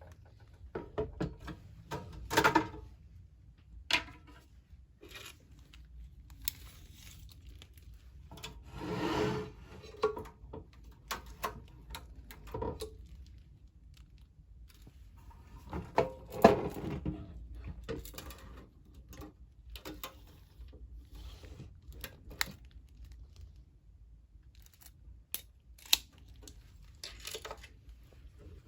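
Handling noises: irregular clicks, knocks and rustling as objects are moved about by hand, with a few louder knocks and a longer scraping rustle.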